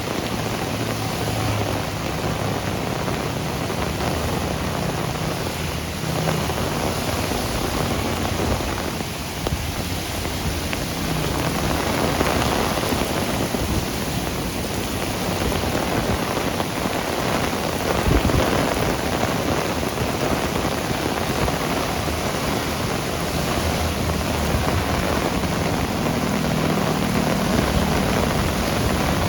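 Heavy rain pouring steadily, with vehicles passing at times underneath it and a single sharp knock about two-thirds of the way through.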